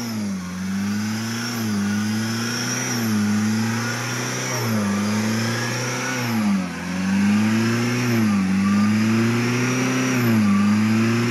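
Chevrolet Captiva diesel engine running and revved in repeated short blips, its pitch rising and falling about every second and a half. It is misfiring, which the mechanics suspect comes from a valve still held open by carbon drawn in from the intake manifold.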